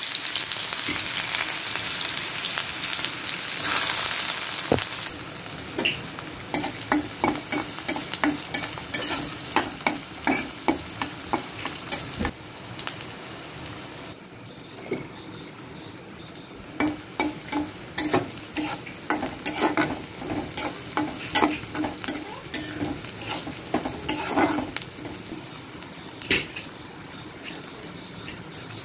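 Chopped onions sizzling in hot oil in a metal kadai, loudest for the first five seconds or so. A spatula then scrapes and knocks against the pan in quick strokes through two long bouts of stirring, with the frying hiss going on underneath.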